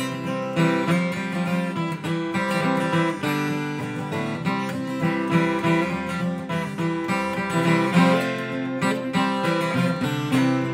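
Acoustic guitar being strummed in a steady rhythm, the chords changing every second or so.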